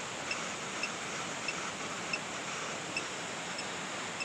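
Steady outdoor rushing noise with faint, short, high electronic beeps repeating about every two-thirds of a second.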